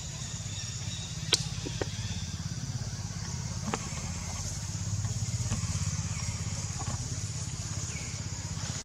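A small engine running steadily with a low, fast-pulsing rumble, with a few sharp clicks.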